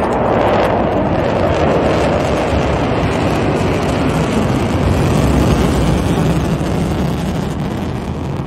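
Two B-1B Lancer bombers, each with four F101 afterburning turbofans, flying low overhead in formation: a loud, steady jet roar that sinks toward a deeper rumble as they pass.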